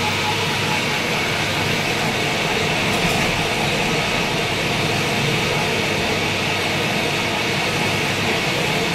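Metal-turning lathe running steadily, a constant mechanical whirr with a hissing edge and a faint steady whine.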